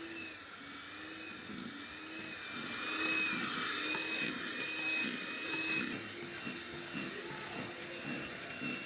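Electric mixer running, most likely whipping the cream for tiramisu, its motor whine wavering and dipping in pitch as the beaters work through the mixture. It is louder for a few seconds in the middle.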